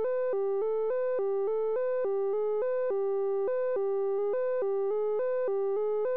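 FabFilter Volcano 3 filter self-oscillating with its peak (resonance) turned all the way up. Its cutoff is stepped by the step sequencer, locked to the notes of a triad, so it plays a pure tone as a fast repeating arpeggio of three pitches, several notes a second, at a constant level.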